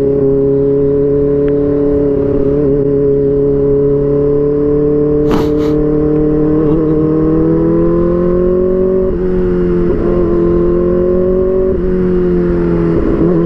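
Kawasaki Ninja ZX-4RR's 399 cc inline-four engine under way at high revs. Its note climbs slowly and dips briefly a few times in the second half, as on quick-shifter gear changes. There is a sharp click about five seconds in.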